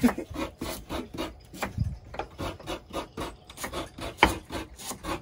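Quick, even strokes on wood in food preparation, about four or five a second.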